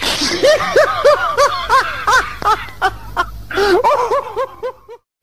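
Laughter: a run of short rising-and-falling 'ha' pulses, about four or five a second, pausing briefly and picking up again, then cutting off abruptly near the end.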